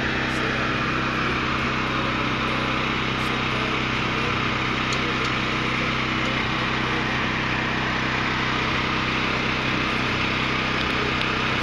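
Small engine running steadily at a constant speed, an even hum with no change in pitch or load.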